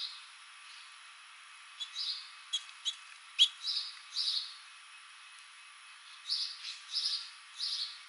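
House finches chirping: short, high chirps in small clusters with quiet gaps between, and a few sharp single notes about three seconds in.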